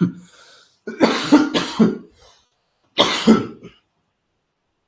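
A man coughing: a run of several loud coughs about a second in, then one more cough about two seconds later.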